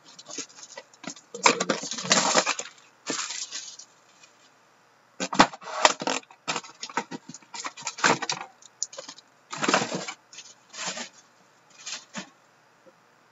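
Plastic shrink wrap crinkling and cardboard rubbing as sealed trading-card boxes and foil packs are handled and moved about, in irregular bursts with a short lull about four seconds in.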